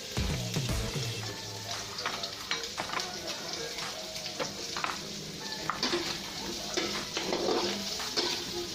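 Meat sautéing in oil in a pan, sizzling steadily, with a spatula scraping and tapping against the pan many times as it is stirred.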